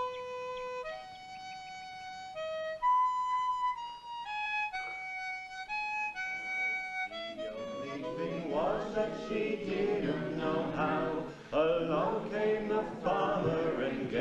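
A slow tune played on a single wind instrument, one note at a time. About halfway through, a group of boys and men starts singing together in a campfire sing-song.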